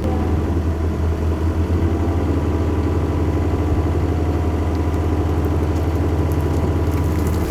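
John Deere mini excavator's diesel engine running steadily with a low, even throb.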